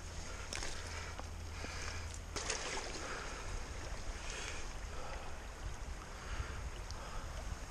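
River water running and splashing as a steelhead is held in the shallow current, with a couple of sharp knocks from handling and a low rumble of wind on the microphone.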